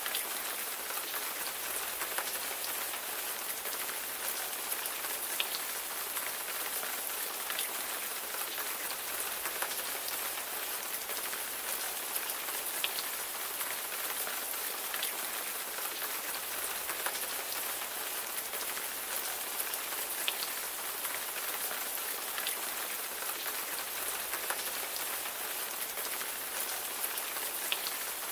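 Steady rain falling on a surface: an even hiss, with single drops ticking now and then.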